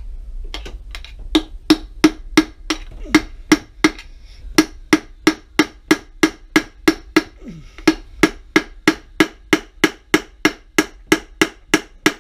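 Steady hammer blows on a hand-made punch against a Pratt & Whitney Model B lathe's apron casting, about three ringing metal strikes a second. It starts with a few lighter taps, then settles into harder, even blows while he tries to drive a stuck part free.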